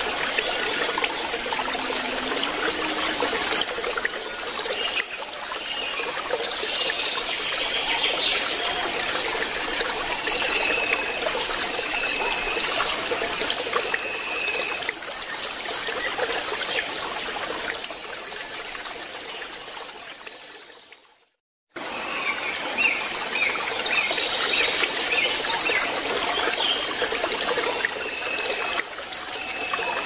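Water trickling steadily, with birds chirping and calling over it in short repeated notes. The sound fades out about two-thirds of the way through and comes back about a second later.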